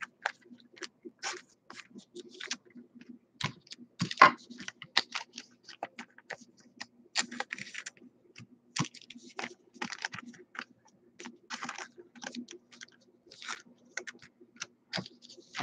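Trading cards being handled and flipped through by hand: irregular quick clicks and snaps of card stock, with rustling from a clear plastic sleeve. A faint steady low hum runs underneath.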